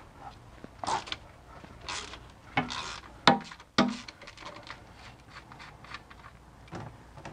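Ratchet and socket working a plug loose on a ZF manual transmission case: a series of short metallic clicks, scrapes and knocks, the loudest a few seconds in, then lighter ticks as the plug is turned out by hand.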